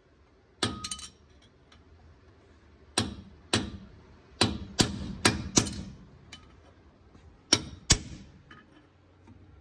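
Hammer blows on a long punch driving the old pinion bearing race out of a Ford Super Duty's rear axle housing: about nine sharp metal-on-metal strikes with a short ring, in irregular groups.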